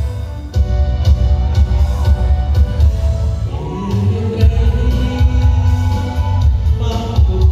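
Loud music with a heavy bass beat; from about halfway through, a singing voice comes in over it.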